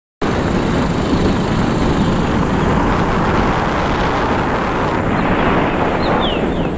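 Wind buffeting the microphone, a loud steady rush that cuts in abruptly, as on a moving ride; a few short high chirps sound briefly near the end.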